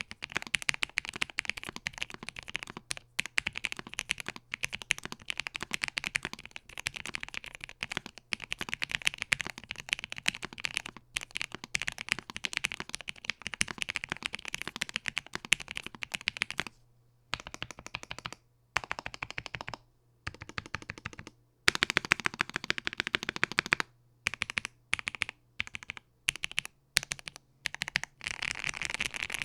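Satisfaction75 mechanical keyboard being typed on fast, a dense stream of keystroke clacks. About two-thirds in the typing breaks into short pauses and a few single, separate key presses before fast typing picks up again.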